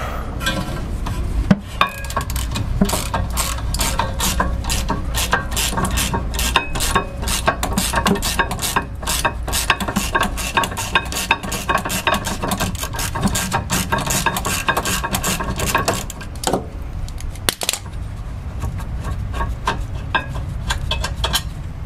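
Hand ratchet wrench clicking rapidly, several clicks a second, as the upper bolt of a rear brake caliper bracket is backed out, with light metal clinks; the clicking stops for a moment about three-quarters through, then resumes briefly.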